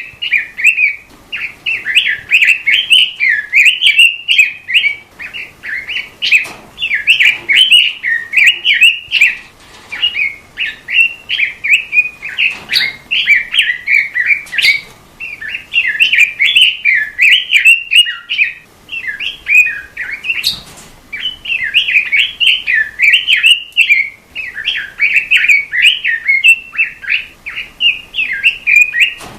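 A robin songbird singing a long, rapid warbling song of quick, varied chirping notes, nearly continuous with a few brief pauses.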